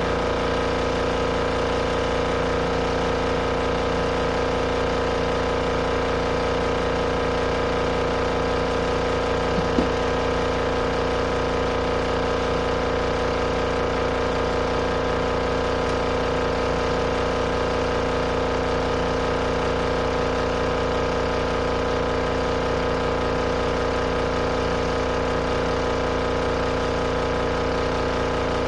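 Compact RV washing machine running steadily, its motor giving a constant hum, with a single brief click about ten seconds in.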